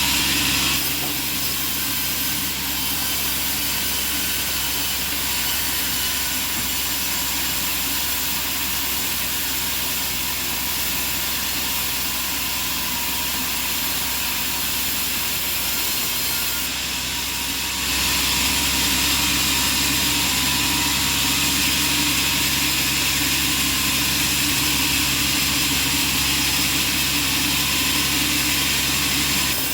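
Bandsaw sawmill running steadily, a continuous machine hum with a hissing band-saw noise. It grows louder and brighter about eighteen seconds in.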